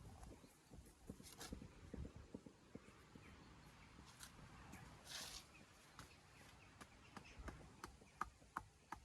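Near silence with faint, scattered clicks and knocks, a short scrape about five seconds in, and a few sharper ticks near the end.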